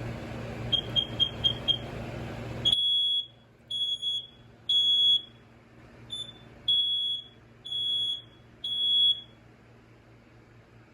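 BRK 4120B smoke alarm sounding on test: a quick run of five short chirps, then loud high beeps in the temporal-three pattern, three half-second beeps, a pause, then three more, showing the alarm still works.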